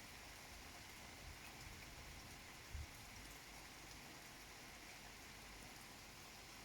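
Faint steady rain during a summer thunderstorm, with a brief low thump nearly three seconds in.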